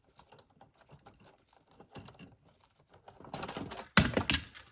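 Copper wires and a plastic twist-on wire nut being handled as a neutral wire is untied from a bundle: a run of light clicks and scrapes that grows louder and busier near the end.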